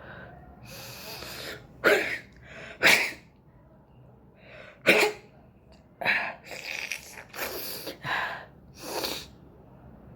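A person sneezing three times, sharp and loud, set off by tickling inside the nose with a cotton bud, then a run of shorter breathy bursts.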